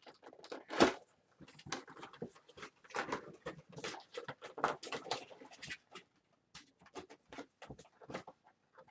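Cardboard box and plastic packaging of a vinyl figure being opened by hand: irregular rustling, crinkling and clicking, with a sharp knock about a second in, thinning to scattered clicks near the end.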